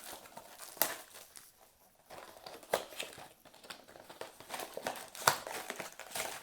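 Cardboard trading-card blaster box and its wrapped packs being handled and opened: irregular crinkling and rustling, with scattered light taps and a couple of sharper clicks.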